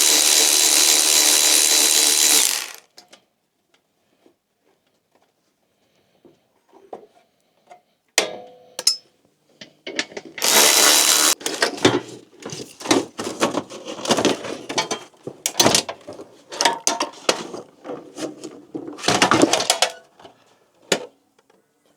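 Power drill/driver spinning out the 10mm bolts that hold a diesel heater to its back plate, a steady whine for nearly three seconds, then a second short burst about ten seconds in. Between and after come clunks and knocks of the metal heater and its parts being handled and pulled free.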